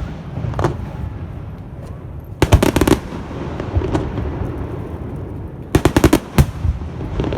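Fireworks going off close by: two quick volleys of sharp bangs, one about two and a half seconds in and one about six seconds in, with a low rumble between them.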